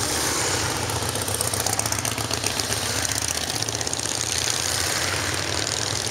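A line of cruiser and touring motorcycles riding slowly past one after another, their engines running at low speed with a steady, pulsing rumble.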